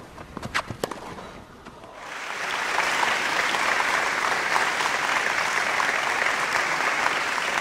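A few sharp knocks, then about two seconds in a large stadium crowd breaks into steady applause.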